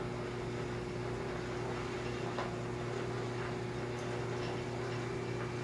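Steady low electrical hum over a faint hiss, even throughout.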